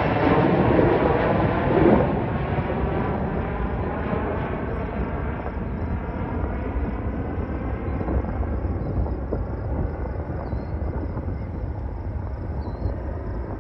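Twin-engine jet airliner climbing away overhead after takeoff, its engine noise fading steadily as it recedes.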